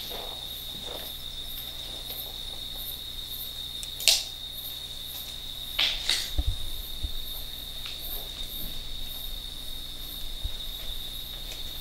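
Night crickets chirring: one steady high-pitched trill, with a fainter, higher chirp repeating about twice a second. A few sharp clicks cut in, about four and six seconds in, with some low thumps just after the second.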